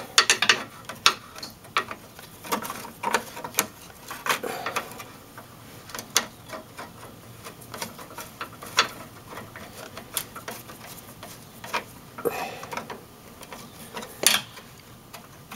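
Irregular metal clicks and taps of a hand tool working the bolt of the exhaust clamp that joins the heater boxes.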